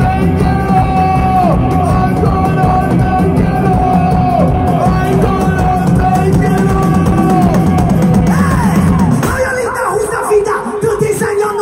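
Live band playing amplified music, heard from within the crowd: a steady beat under a held melody line that bends down in pitch again and again. About nine seconds in, the bass and drums drop out.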